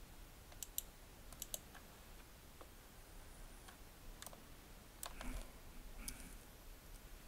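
Scattered clicks of a computer mouse and keyboard, some in quick pairs, against quiet room tone.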